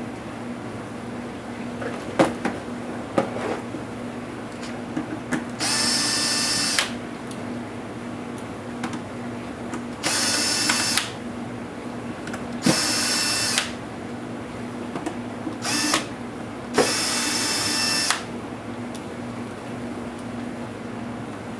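Small electric screwdriver running in short bursts of about a second each, five times, as screws are backed out of a laptop's case, with small clicks of handling between the bursts.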